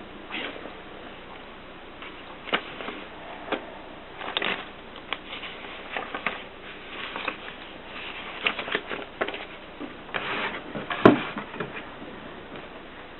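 Olympia Filia manual typewriter being typed on: irregular key strikes, some in quick clusters, with one louder clack about eleven seconds in.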